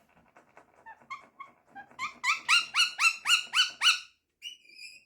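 Pet parrot calling: soft faint clicks at first, then a quick run of about eight short, rising squawks, about four a second, and one higher call near the end.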